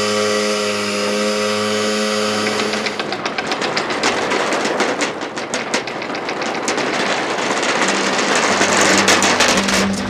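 Anchor windlass motor running with a steady whine as it hauls in the rope rode. About three seconds in, the anchor chain spliced to the rope comes aboard and clatters rapidly over the gypsy and down into the anchor locker, the rattling growing loudest near the end.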